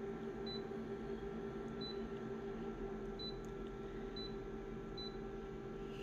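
Steady electrical hum with five short, high-pitched electronic beeps spread through it, and a faint click or two near the middle.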